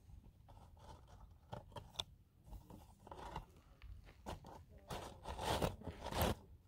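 Footsteps crunching on loose gravel, irregular and quiet, with a cluster of louder crunches about five to six seconds in.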